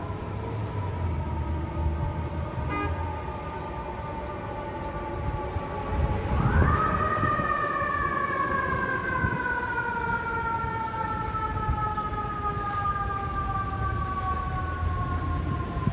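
Fire truck siren winding slowly down, then revved up sharply about six and a half seconds in and winding slowly down again, over the low rumble of the truck's engine.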